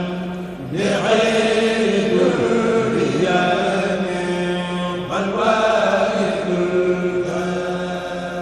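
Group of men chanting a Mouride khassida, a sung Arabic religious poem, amplified through microphones. The notes are long and held, and new phrases start about a second in and again about five seconds in.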